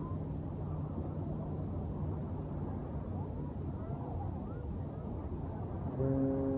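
Steady low beach ambience with a faint hum and distant voices. About six seconds in, a ship's horn starts sounding: a loud, steady blast of several tones at once.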